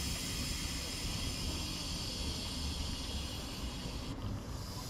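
Compressed air hissing steadily from the standing passenger train's air system, cutting off abruptly about four seconds in, over a low steady rumble.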